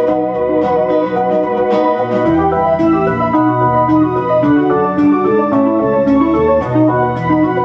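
Instrumental music: a melody played on a Moog Etherwave Standard theremin over an electronic backing track of sustained chords and a bass line, the lead stepping from note to note.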